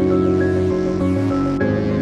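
Electronic theme music: sustained synth chords over a pulsing low beat, with the chord changing twice.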